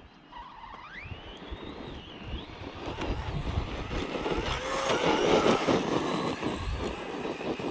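Redcat Kaiju EXT RC monster truck being driven: its motor whine rises in pitch as it accelerates, then its tyres and chassis rattle over rough dirt, growing louder to about five seconds in and then easing.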